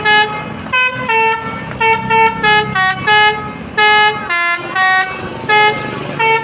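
Basuri melodic 'telolet' horn on a QQ Trans bus playing a tune: a quick run of short, loud horn notes stepping up and down in pitch, with a low vehicle rumble beneath.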